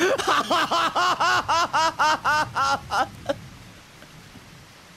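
A man laughing: a long run of "ha" syllables, about four a second, each rising and falling in pitch, which stops about three seconds in.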